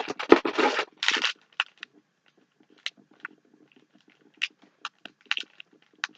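Packaging being handled and crinkled during an unboxing. A burst of loud crinkling and rustling in the first second or so, then scattered light crackles and taps.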